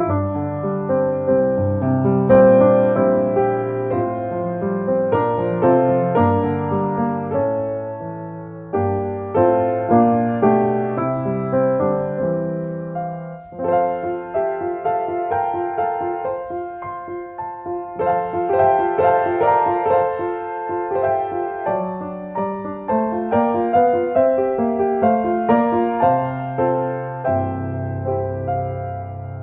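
Instrumental piano music, slow and gentle, with a short pause about halfway through before the melody resumes.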